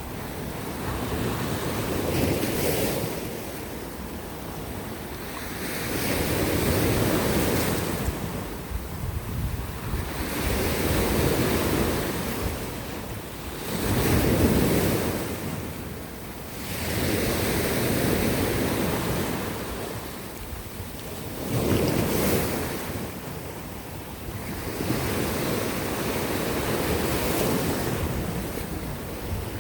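Sea surf breaking on a rocky shore, wave after wave swelling and washing back about every four seconds, with wind rumbling on the microphone.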